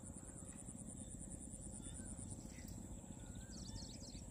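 Faint outdoor ambience: a low steady rumble with a few faint bird chirps scattered through and a quick run of high chirps near the end, over a steady high-pitched tone.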